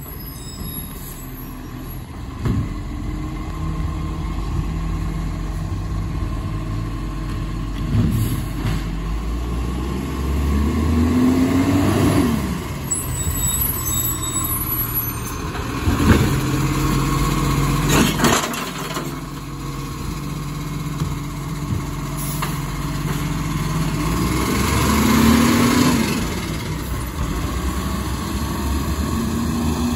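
Iveco side-loader garbage truck's diesel engine idling and revving up in swells as it works the kerbside bins, with a few sharp clanks partway through.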